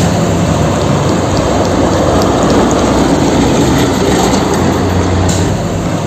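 Concrete mixer truck running: a loud, steady engine and machinery noise with a low hum underneath, cutting off suddenly at the end.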